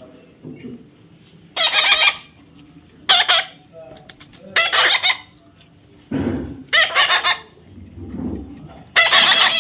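A parrot calling loudly: five calls, each under a second, about one and a half seconds apart.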